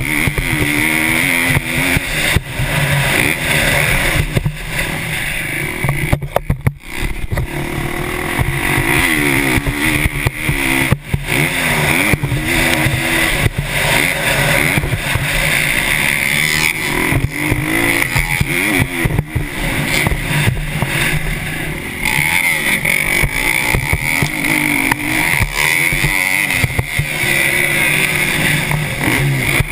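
KTM 350 SX-F's single-cylinder four-stroke engine heard from the rider's helmet camera, revving up and dropping back again and again as he accelerates, shifts and brakes. The throttle chops off briefly about six seconds in.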